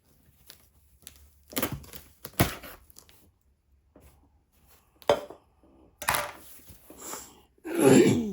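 Cardboard shipping box being opened by hand: tearing and crinkling in several short bursts with a few sharp clicks, the loudest near the end.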